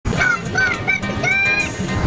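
Intro music: a high sung or synthesised vocal melody over a beat.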